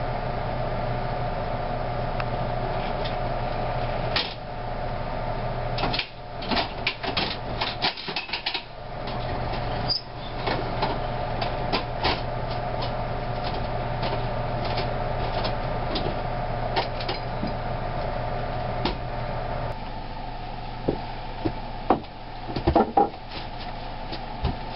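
A steady mechanical hum, with scattered wooden knocks and clatter from someone moving about on attic floorboards and handling boxes, bunched together twice.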